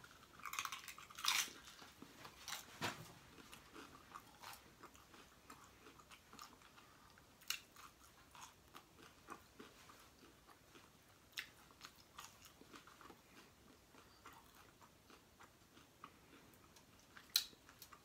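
A person chewing and crunching a bite of crispy chicken taco close to the microphone: a cluster of crunches in the first three seconds, then quieter chewing with a few sharp crunches, the loudest near the end.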